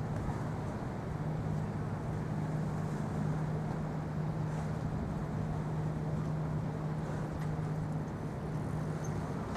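Steady running noise of a moving vehicle heard from inside, an even rumble with a constant low hum.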